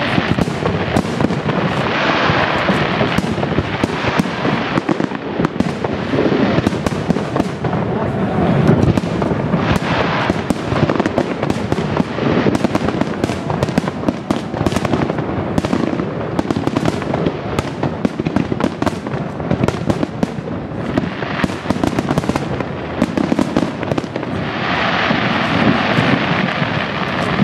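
Aerial fireworks shells bursting in a dense, continuous barrage of bangs and crackling.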